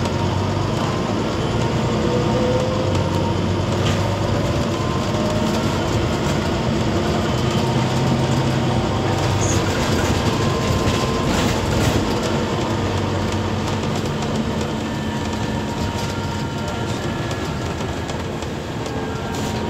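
Cabin noise inside a moving Volvo B9TL / Wright Eclipse Gemini 2 double-decker bus: the diesel engine and driveline hum rises and falls with speed, with a whine rising in pitch as it pulls away. Road noise runs underneath, with small rattles from the fittings.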